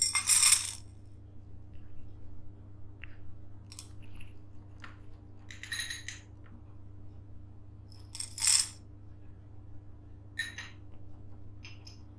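Small seashells dropped by hand into a stemmed glass, clattering and clinking against the glass. There are three louder pours, near the start, about six seconds in and about eight and a half seconds in, with lighter single clinks between.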